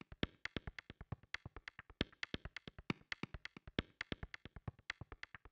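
Quiet background electronic music: a quick, even run of short staccato notes, about eight a second.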